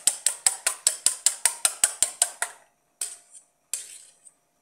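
Two eggs being beaten with a knife in a stainless steel bowl, the blade clicking against the metal about six times a second. The beating stops about two and a half seconds in, followed by two single taps.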